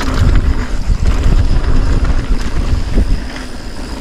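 Wind buffeting the GoPro action camera's microphone during a fast mountain bike descent, over the low rumble and light rattle of the bike's tyres on a rocky dirt trail. It eases noticeably about three seconds in.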